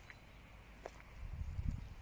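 Footsteps and rustling on grass, louder in the second half, with a couple of short clicks about a second in.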